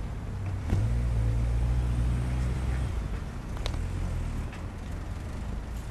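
Stadler FLIRT electric multiple unit running with a steady low hum that swells about a second in and eases off after a couple of seconds. There is a sharp click as it swells and another faint click later.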